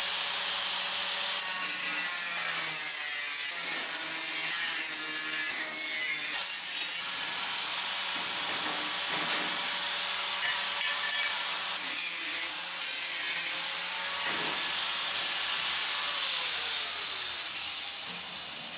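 Angle grinder with a cut-off disc running and cutting through a thin sheet-metal shelf: a steady motor whine under a hiss of metal being cut, with a few brief breaks. Near the end the grinder is switched off and its motor winds down.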